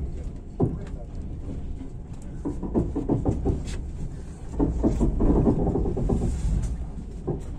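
Passenger train carriage rolling slowly out of a station, heard from inside: a steady low rumble with irregular clicks and knocks as the wheels run over rail joints and points. Indistinct voices come and go over it.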